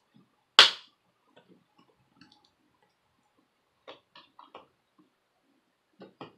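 Sharp clicks and taps of small parts being fitted by hand into an open laptop chassis. One loud click comes about half a second in, then faint taps, a quick run of four clicks around the middle, and a few more near the end.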